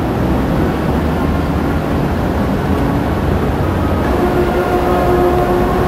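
Steady low rumble of outdoor background noise, with a faint held tone coming in about four seconds in.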